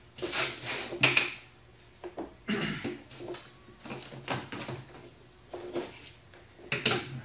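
Cardboard being cut: short scratchy strokes roughly every second, with a couple of sharp clicks about a second in.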